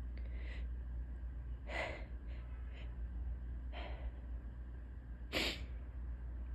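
A woman's short, breathy gasps, four in about five seconds with the last the loudest: the hitching breaths of a tickly sneeze building up.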